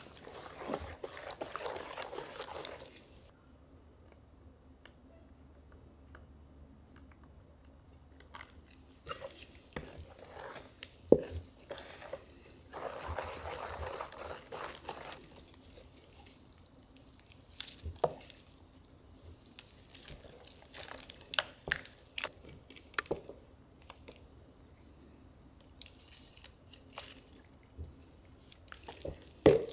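Wet food being mixed and handled in a kitchen, with scattered clicks and knocks of utensils and a bowl. There are a few seconds of steadier wet rustling at the start and again around halfway.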